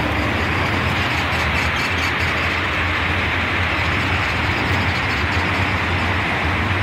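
Moving escalator running: a steady mechanical hum with an even hiss over it.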